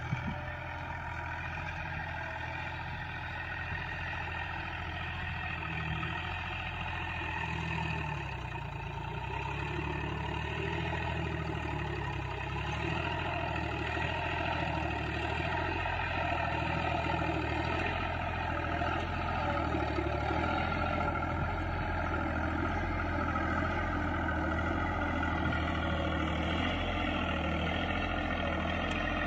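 John Deere 5103S tractor's three-cylinder diesel engine running steadily under load as it pulls a nine-tine cultivator through dry stubble. It grows gradually louder as the tractor draws nearer.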